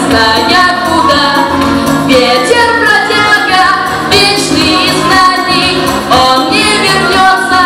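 Pop song sung by female voices over a backing track, with sung melody lines gliding and changing pitch throughout.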